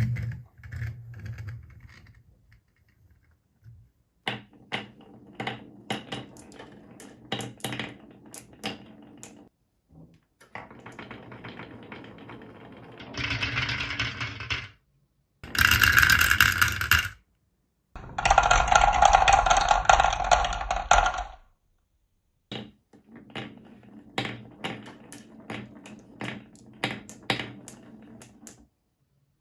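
Marbles rolling down a marble run: quick runs of sharp clicks and clacks as they hit the track, and several stretches of steady rolling rumble a few seconds long. The rolling stretches in the middle are the loudest.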